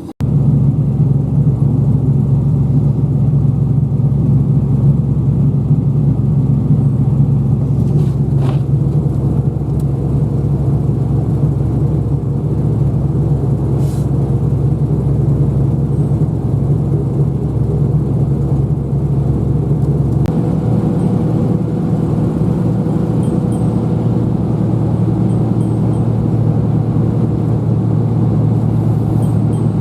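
Car running with a steady low rumble from engine and road, unbroken for the whole stretch; its tone shifts slightly about twenty seconds in.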